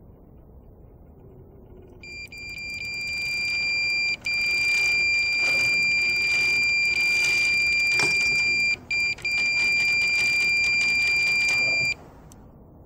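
Electronic carp bite alarm sounding a near-continuous high-pitched beep for about ten seconds, the signal of a run, with a carp taking line. It starts about two seconds in, swells over the next two seconds, breaks off briefly a few times, and cuts off near the end.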